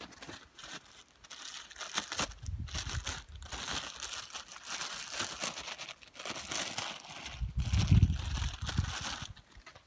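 Clear plastic packaging bag crinkling as hands handle the new clutch cable inside it. Two low rumbles come through, the louder one near the end.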